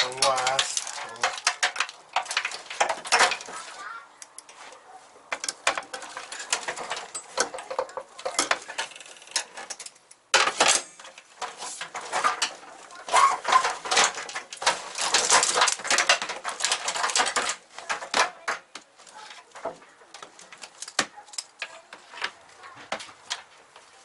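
VW Corrado's wiring harness being worked loose and pulled through the engine bay: plastic connectors and wire loom clattering and clicking against the metal body in irregular bursts.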